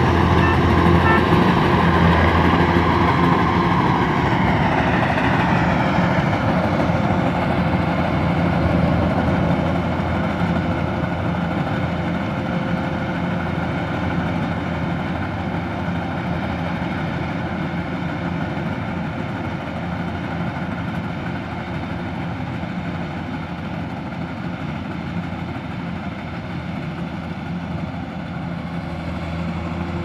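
Tracked rice combine harvester running, its engine and machinery droning steadily and fading gradually as it moves away across the field.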